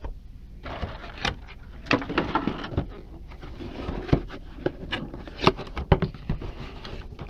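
A vinyl figure's cardboard display box with a clear plastic window being handled and opened as the figure is taken out: rustling packaging with scattered clicks and knocks.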